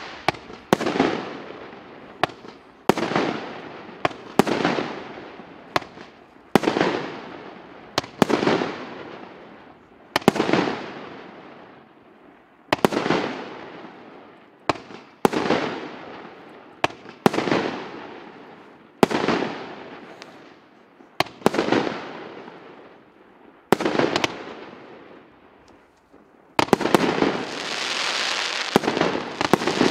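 Consumer fireworks cake firing shot after shot, about one every two seconds: each is a sharp bang that trails off over a second or so. Near the end the shots come thick and run together into a steady din.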